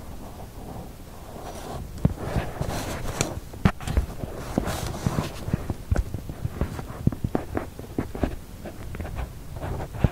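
Irregular clicks, taps and knocks with some rustling, as small objects are handled and moved about on a workbench, starting about two seconds in.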